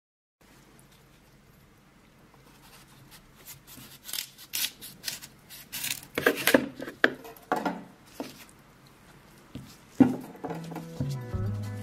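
Kitchen knife slicing the skin off a black radish on a wooden cutting board: a run of crisp cuts, then a single sharp knock about ten seconds in. Background music begins near the end.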